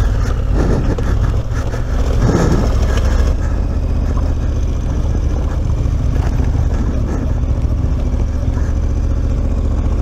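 Adventure motorcycle's engine running steadily at a low, even speed while riding an off-road track, with a constant rumble and a rushing noise over it.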